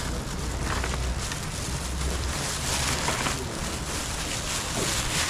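Thin plastic bag rustling and crinkling as it is handled close to the microphone.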